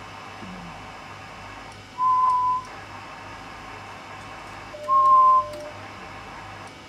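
Two short, steady electronic beeps from an ICOM IC-7100 transceiver, each about half a second long and some three seconds apart, the second with a lower tone under it, over a low steady hum.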